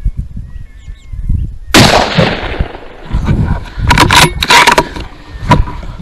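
A single rifle shot about two seconds in, sharp and loud, dying away over about a second. A few sharp clicks and knocks follow a couple of seconds later, over steady low wind rumble on the microphone.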